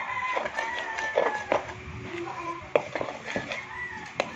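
A rooster crowing in the background, long drawn-out calls that fall slightly in pitch, one at the start and another near the end. Scattered sharp clicks come from a utensil stirring a dry batter mix in a plastic bowl.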